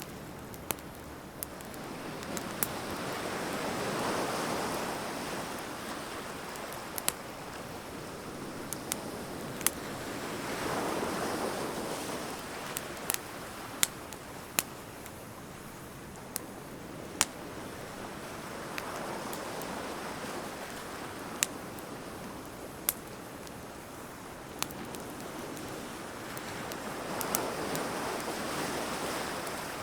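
Bonfire of burning wood crackling and popping in sharp, irregular snaps, with ocean waves washing in and out behind it, swelling about every seven or eight seconds.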